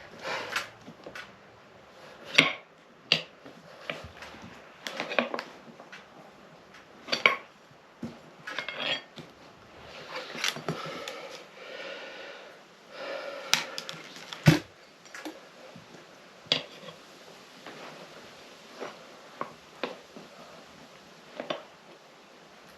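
Tyre levers clinking and knocking against a motorcycle wheel rim while the tyre bead is levered on, in irregular sharp knocks with a longer scraping rub in the middle. It is a small room, so the knocks echo slightly.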